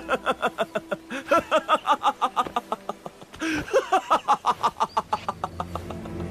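A person laughing heartily in rapid, repeated 'ha-ha' pulses, in two long bouts broken by a sharp breath about three and a half seconds in.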